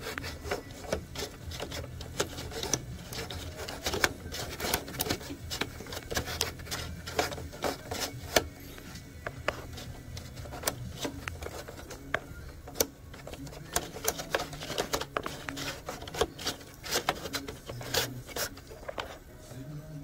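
Handling noise from an impact printer's plastic rear tractor feed assembly as its square drive shaft is worked through: many sharp plastic clicks at an uneven pace with rubbing and scraping in between.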